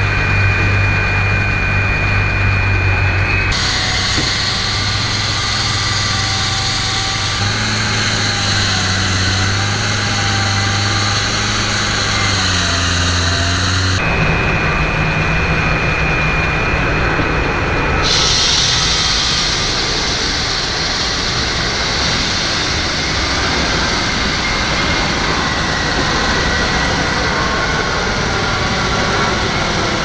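Steady engine noise from heavy construction machinery and road traffic, with a low hum whose pitch wavers a little in the middle.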